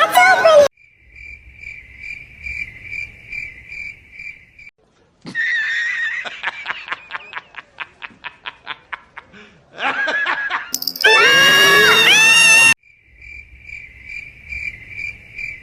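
Cartoon sound effects: a cricket chirping in steady high pulses, then a frog croaking in a rapid rattle. A loud burst of wavering voice follows, and then the cricket chirping again.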